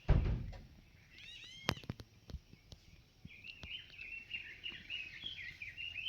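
A thump at the start, then a small bird calling: a few quick chirps about a second in, followed by a long run of rapid, warbling notes.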